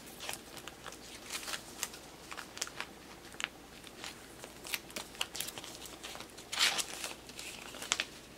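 Clear plastic binder pocket pages and card sleeves crinkling and rustling as photocards are slid into the pockets: a run of short crackles, with a louder, longer crinkle about two-thirds of the way in.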